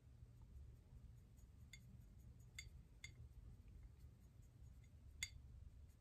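A few faint, sharp clinks of a paintbrush tapping against a ceramic watercolour mixing palette as paint is mixed in its well, the clearest about five seconds in, over a low steady hum.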